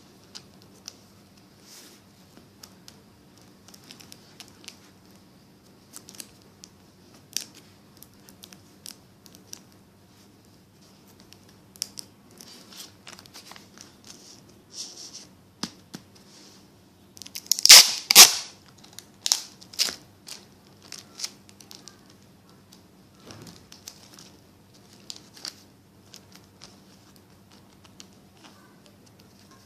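Paper being handled, with scattered light crinkles and clicks. A loud, dense burst of crinkling and tearing comes a little past the middle.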